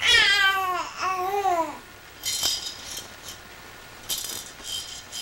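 Infant cooing: two drawn-out vocal sounds in the first two seconds, each sliding down in pitch, followed by a few short, high rattling jingles.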